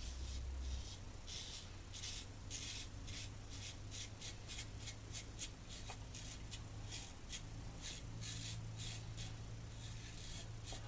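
Gillette Super Speed heavy red tip safety razor scraping stubble through slick lather in quick short strokes, two to three a second.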